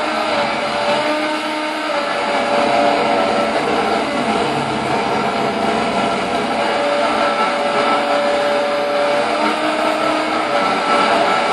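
Electric razor buzz picked up by a contact pickup and an electromagnetic mic and run through effects pedals, making a loud, dense, steady drone with held tones that fade in and out over it.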